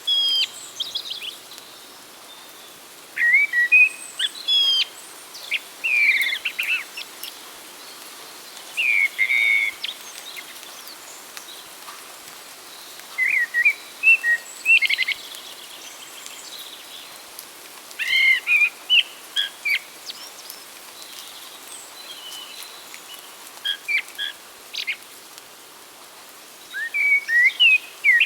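A songbird singing short, quick phrases every few seconds, over a steady background hiss.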